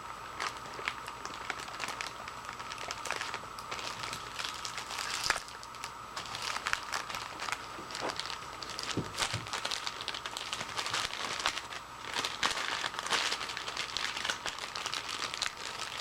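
Plastic bag crinkling and rustling in irregular bursts as it is handled and taped up, over a faint steady hum.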